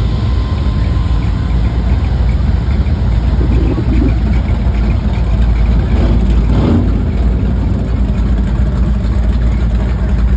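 Classic cars' engines running as they drive slowly past in a parade, a steady deep rumble throughout. One car swells louder as it passes close about six seconds in.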